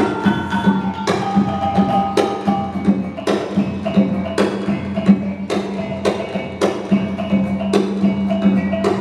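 Minangkabau traditional dance music: struck metal gong-chimes and drum hits on a steady beat, a strong stroke about once a second with lighter ones between, over a held low tone.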